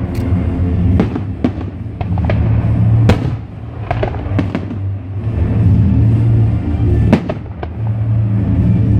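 Aerial fireworks shells bursting one after another, a dozen or so sharp bangs over a few seconds. Music plays underneath.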